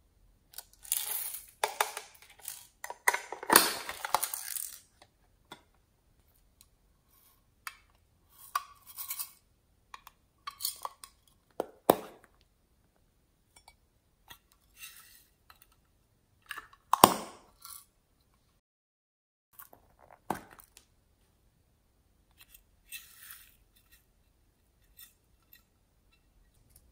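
Loose plastic sequins and glitter rattling and clinking inside small plastic and tin cases as they are handled, with sharp clicks and taps from the cases. A longer run of rattling in the first few seconds, then scattered single clicks and short rattles with silent gaps.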